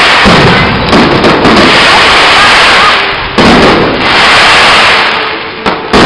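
Aerial firework shells bursting, with sharp bangs about a second in, a little after three seconds and again near the end, each followed by a long spray of crackling from the glittering stars.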